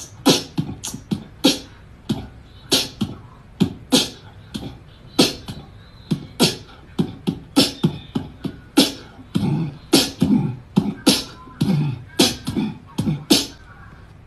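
Beatbox-style vocal percussion: sharp clicks and low thumps, two or three a second in a quick, uneven rhythm.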